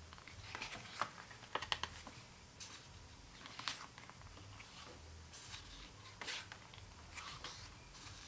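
Photobook pages being handled and turned: scattered soft paper rustles and light taps, with a small cluster about a second in.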